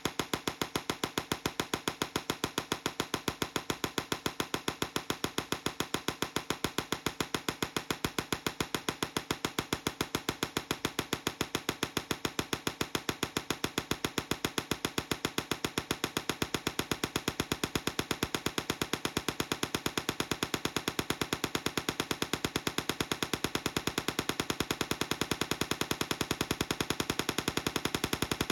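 Tesla coil sparking: a rapid, even train of sharp electric cracks, several a second, kept up steadily.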